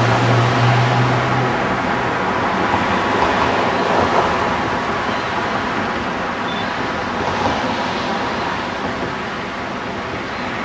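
Fast-flowing floodwater rushing and churning around a submerged railing, a loud steady rushing noise. A low steady hum underneath stops about a second and a half in.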